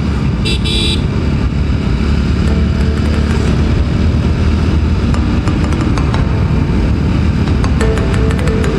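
TVS Apache RTR 200 4V's single-cylinder engine running steadily while the motorcycle cruises on the road. A brief high-pitched tone sounds about half a second in.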